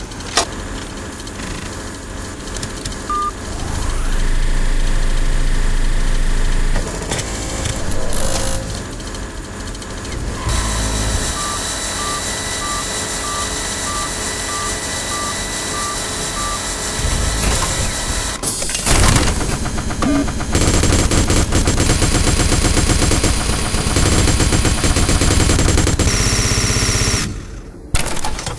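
Sequence of synthesized sci-fi military-robot sound effects: dense mechanical noise and rumble, a row of short evenly spaced beeps at one pitch in the middle, then rapid machine-gun fire over a heavy rumble.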